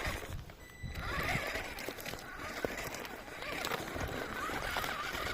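Small electric 1/10-scale RC rock crawler running slowly over rocks, its motor and drivetrain going steadily under scattered clicks and knocks from the tyres and chassis on the stone.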